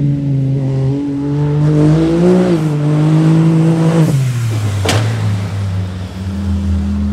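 Sport side-by-side UTV engine running hard on concrete, its note climbing and easing, then dropping to a lower steady drone about four seconds in. A single sharp knock sounds about five seconds in.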